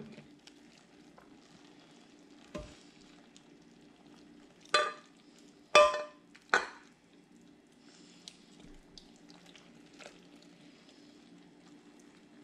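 Metal tongs clinking against the ceramic crock-pot insert and a plate while a cooked beef roast is lifted out of its juices. Three sharp clinks with a short ring come about five to seven seconds in, with lighter knocks before and after.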